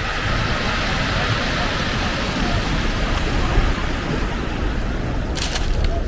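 Sea surf breaking over rocks and a pebble shore: a steady rush of waves, with a short crackle near the end.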